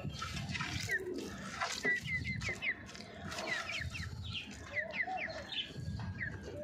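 Chickens clucking, with runs of short, high chirps from smaller birds throughout and a lower wavering call from one bird about two-thirds of the way in. A hand squeezes soaked roti crumbs in a steel pot underneath.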